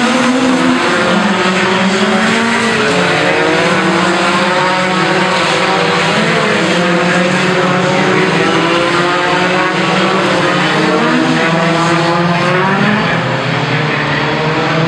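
Several race engines running hard together on track, their pitches rising and falling with throttle and gear changes without a break.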